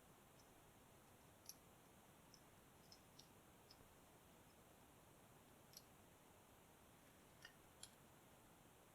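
Faint, scattered small metallic clicks, about half a dozen spread over several seconds, of a hook pick and tension wrench working in a padlock's keyway while picking it.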